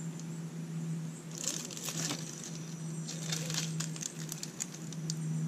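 Radio-controlled scale rock crawler climbing a dirt pile: a steady electric motor hum with a faint high whine, and its tyres crunching and crackling over dry dirt clods and leaves, in clusters from about a second and a half in.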